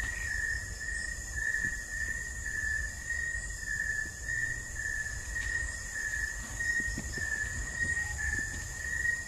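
Night insects trilling in one steady high pitch, with the low rumble and faint knocks of someone handling the camera and walking.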